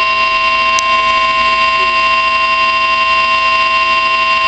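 A weather alert radio sounds the NOAA Weather Radio warning alarm tone: a loud, steady, single-pitch beep held without a break. It signals that a severe thunderstorm warning is being broadcast.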